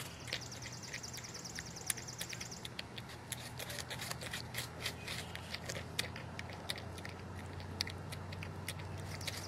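Porcupine gnawing and chewing a piece of raw vegetable held in its paw: irregular sharp crunches and clicks. A rapid high trill sounds in the background for the first couple of seconds, over a steady low hum.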